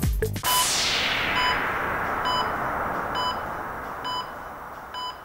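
Close of an electronic dance track: the beat cuts off about half a second in, and a white-noise sweep falls in pitch and slowly fades under short electronic beeps a little under a second apart, like a hospital heart monitor.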